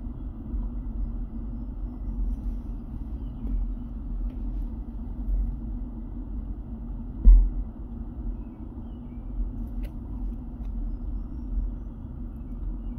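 Low rumble of wind buffeting the microphone outdoors, swelling and dipping, with one bump about seven seconds in.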